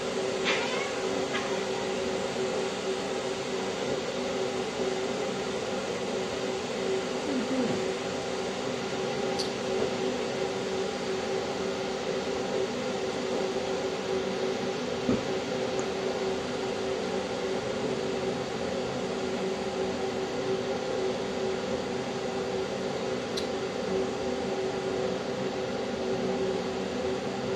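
Steady mechanical hum with a constant tone, like an appliance or fan running, and a few faint ticks.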